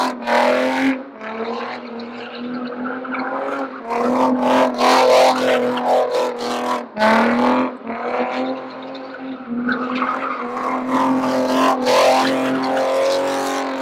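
A car drifting: the engine is held at high revs at a fairly steady pitch while the tyres squeal and skid, louder in stretches near the start and in the middle.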